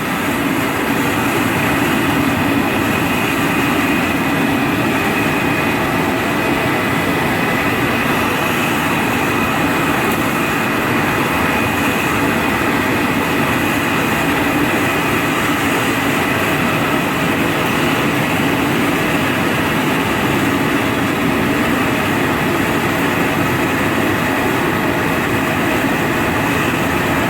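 A blower running steadily with a high whine, forcing air into a charcoal-briquette forge fire to bring it up to heat-treating temperature.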